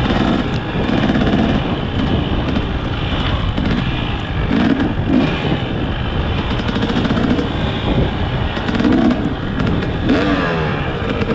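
Dirt bike engine running under load, its revs rising and falling repeatedly as it is ridden over rough trail.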